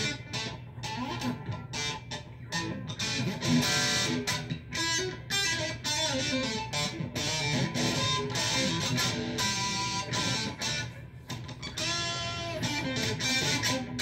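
Electric guitar played solo, a steady stream of quickly picked notes and chords.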